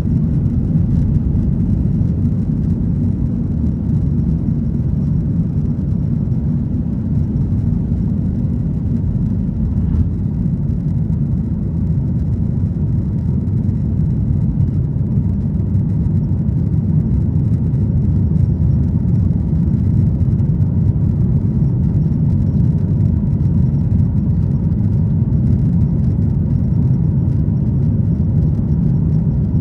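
Cabin noise at the back of a Boeing 737-900ER: a steady low rumble from its CFM56-7B jet engines and the airflow, getting slightly louder about halfway through.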